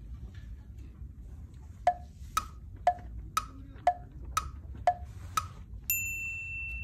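Edited-in sound effect: eight short percussive ticks, two a second, alternating between a lower and a higher pitch, then a steady high beep held for about a second near the end.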